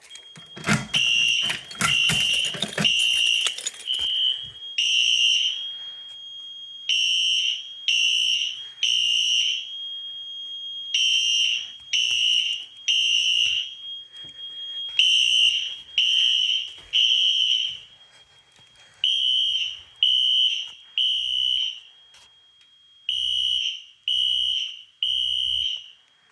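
Fire alarm horns sounding the temporal-three evacuation code: three high beeps, a pause, then repeating about every four seconds, over a steady high tone. The first group is overlaid with rapid clicking.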